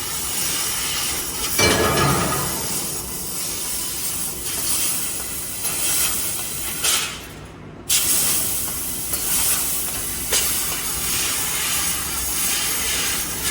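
Fiber laser tube-cutting machine cutting metal tube: a steady hiss of assist gas and cutting, swelling and easing again, that breaks off for a moment about seven seconds in and resumes.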